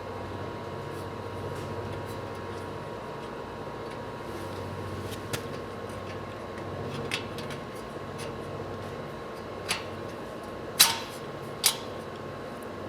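A few light metal clinks and clicks over a steady background hum, the two loudest about a second apart near the end: brake parts and tools being handled while a disc brake caliper bracket is fitted to a GM 12-bolt rear axle.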